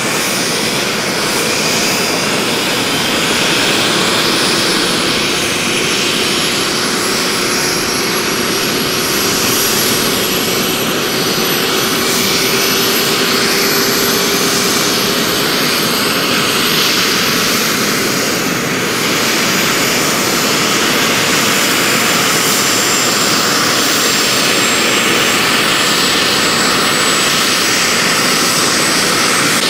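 Large radio-controlled scale model Kamov Ka-52 helicopter running on the ground, its coaxial rotors spinning. It makes a steady rushing drive noise with a high whine that climbs slowly in pitch.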